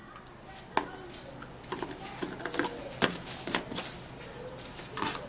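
Knife cutting watermelon into chunks on a board: irregular knocks and clicks, the sharpest about one second and three seconds in.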